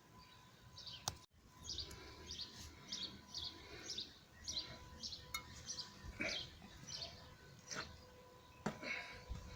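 A bird chirping over and over, short high chirps about two to three a second, after a sharp click about a second in, with a few faint knocks among the chirps.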